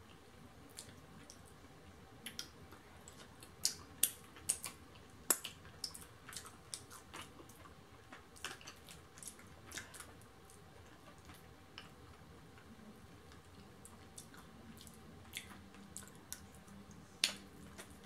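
A person eating close to the microphone: chewing and mouth sounds, with scattered sharp clicks and crackles. A cluster of louder ones comes around four to five seconds in, and a single loud one comes near the end.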